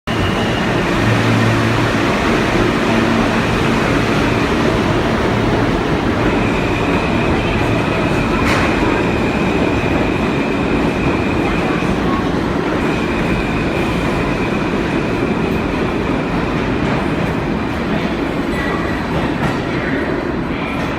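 New York subway train running on the rails: a loud, steady rumble. A high thin whine holds for several seconds twice in the middle, and a low hum is heard in the first few seconds.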